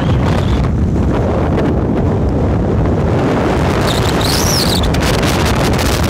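Strong wind buffeting the microphone: loud, steady wind noise with a heavy low rumble.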